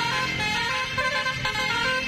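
Basuri musical bus horn playing a tune: a run of short held notes that step up and down in pitch.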